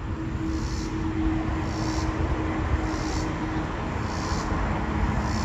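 Low, steady rumble of a train running away down the line, with a steady hum that fades out about three and a half seconds in.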